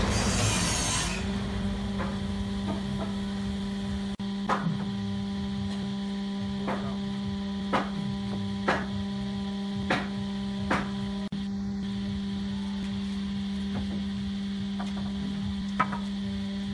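Wooden bed slats being set down on the bed frame's rails: a handful of short, sharp wooden knocks spaced a second or more apart, over a steady electrical hum. A passing truck fades out in the first second.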